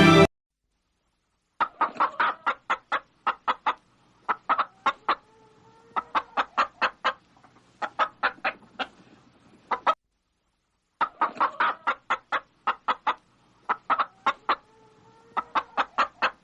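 Hen clucking: runs of short, quick clucks, several a second, broken by brief pauses. The clucking stops for about a second in the middle and then starts again.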